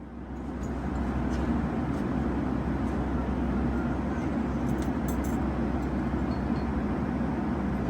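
Steady rushing cabin noise of a Boeing 757-300 airliner in cruise, mostly low in pitch, fading up in the first second, with a few faint clicks about five seconds in.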